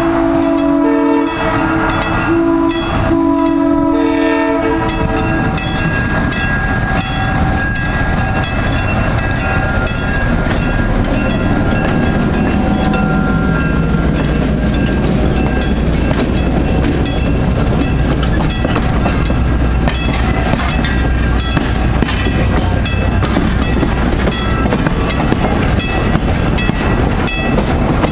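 Southern Pacific diesel switcher No. 1423 sounds its horn in several blasts over the first four seconds or so. Its diesel engine then runs past close by, followed by passenger cars rolling past with wheel clatter. A bell clangs steadily throughout, about two strikes a second.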